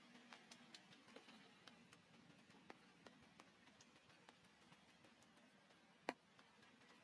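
Near silence with faint, irregular ticks of water drops falling after rain, and one sharper tick about six seconds in.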